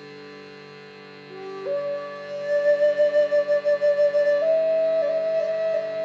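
Flute playing slow, long held notes: quiet at first, then about a second and a half in a low note slides up into a long held note that steps up higher near the end, its loudness swelling and pulsing. A steady drone sounds underneath.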